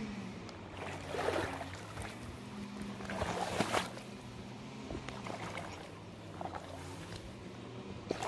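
Water splashing and sloshing in a few short bursts, the loudest around three to four seconds in.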